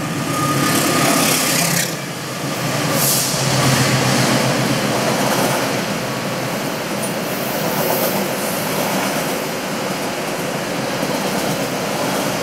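Diesel locomotive hauling passenger coaches passing close by. The engine's hum is loudest in the first few seconds, then the coaches' wheels run steadily over the rails.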